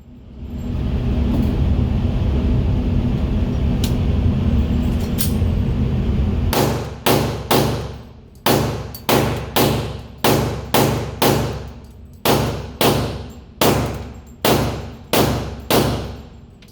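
Glock 22 .40 S&W pistol fired in a rapid string of about twenty shots, roughly two a second with a couple of short pauses, each shot sharp and quickly fading. Before the shooting there are about six seconds of steady low rumble.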